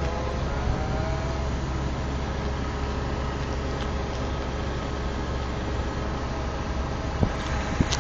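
Crane's engine running steadily with a low, even hum, and a faint whine rising in pitch at the start.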